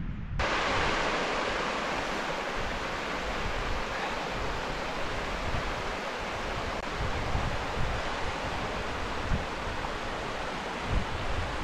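Shallow stream running over flat stones, a steady rushing hiss that starts suddenly about half a second in. Wind gusts rumble on the microphone underneath.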